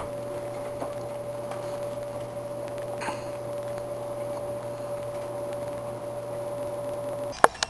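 A steady hum holding one pitch that stops suddenly about seven seconds in, followed by two sharp clicks.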